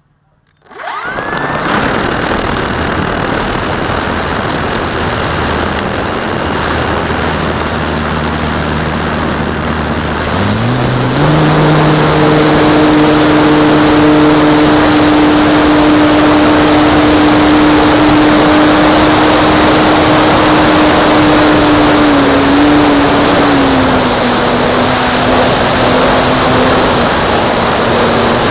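RC model plane's motor and propeller starting up about a second in and running steadily at low throttle, then throttling up about ten seconds in to a steady higher-pitched drone that drops back slightly near the end.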